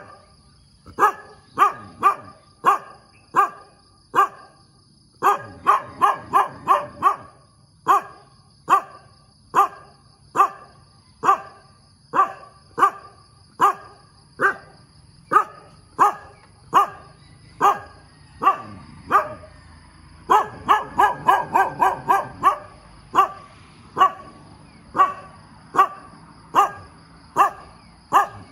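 A tan short-haired dog barking over and over, roughly one bark a second. There are quicker runs of barks a few seconds in and again about two-thirds of the way through.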